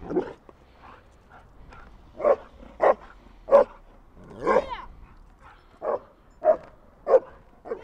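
Small black dog barking repeatedly at the motorcycle: a run of short, sharp barks about every half second, with one longer, drawn-out bark about halfway through.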